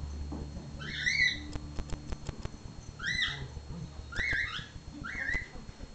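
A cat giving four short, high-pitched mews about a second apart, with a few sharp clicks between the first two.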